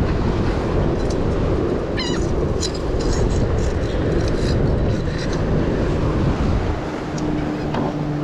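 Wind rumbling on a body-worn camera's microphone, mixed with handling rustle and a few light clicks as the wearer moves. A low steady hum comes in near the end.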